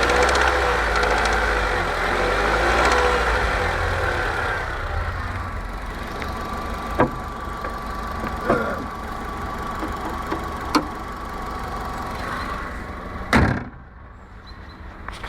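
Honda D15B 1.5-litre four-cylinder engine running, its revs rising and falling gently for the first few seconds and then holding steady. A few sharp clicks follow, then a loud thump near the end, after which the engine sounds much quieter.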